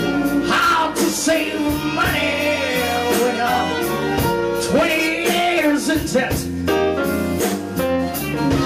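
Live blues band playing a blues number, a lead singer over electric guitar, keyboards and a steady beat.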